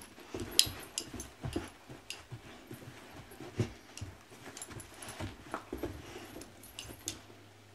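Two dogs tussling over a rope tug toy: irregular scuffling, knocks and thumps, with the dogs' own play noises mixed in. The sharpest knock comes about half a second in.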